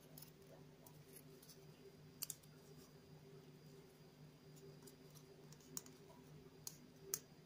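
Near silence with a faint low steady hum and a few light clicks from small punch-out model-kit pieces being pressed together by hand. There is a double click a little over two seconds in, and three more near the end.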